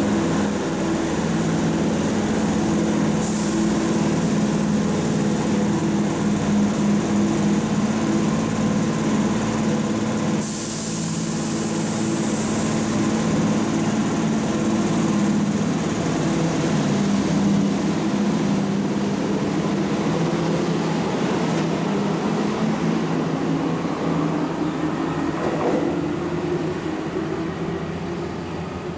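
Keihan electric train running at a station platform: a steady mechanical hum of motors and equipment, broken about ten seconds in by a short sharp hiss of compressed air, with a tone rising slowly in pitch over the last few seconds.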